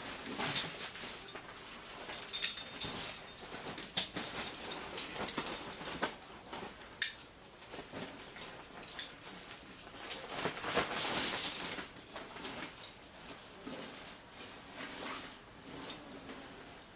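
Gear being handled and packed: irregular rustles and sharp clicks of gear and stuff sacks, with a longer rustling stretch about ten seconds in.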